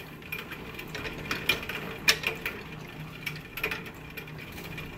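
Pedal-powered metal lathe made in the 1870s running, its gears and mechanism clicking and clattering irregularly over a faint steady whir.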